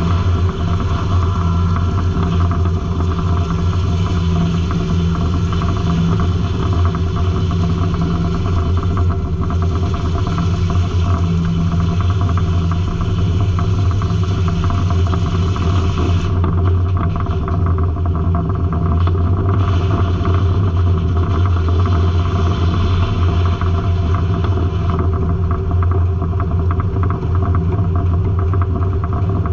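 Circle sawmill running, with a steady low engine drone under a higher hiss that thins out about sixteen seconds in.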